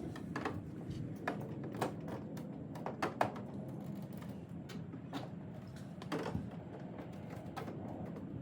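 Scattered light clicks and taps at irregular intervals, from hands handling parts during hand work on a car, over a steady low background rumble.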